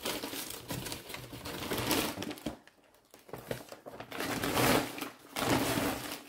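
Kraft paper bag rustling and crinkling as it is handled and rummaged through by hand, in two spells with a short lull just before halfway.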